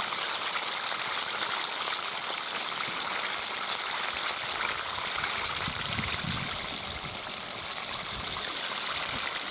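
Flour-coated chicken drumstick deep-frying in hot oil: a steady sizzle made of many fine crackles.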